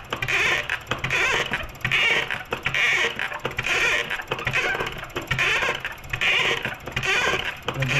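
Toyota Fortuner fuel injector firing on a test bench, spraying in repeated hissing pulses about one and a half times a second. The injector being tested is one the mechanic finds faulty.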